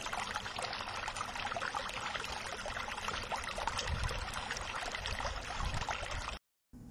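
Water rushing through the gates of a small concrete weir, a steady splashing rush that cuts off abruptly near the end.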